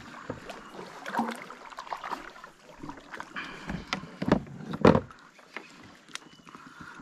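Knocks and thumps against a kayak hull, with a light wash of water and movement noise. The loudest knock comes about five seconds in.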